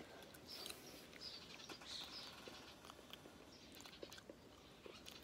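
Near silence: faint chewing of jelly beans, with small soft mouth clicks, and a few faint bird chirps in the background.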